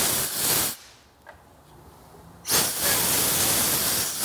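Aerosol carburetor cleaner spraying in two bursts, a short one at the start and a longer one of nearly two seconds from about two and a half seconds in, flushing out the Dellorto carburetor's jets.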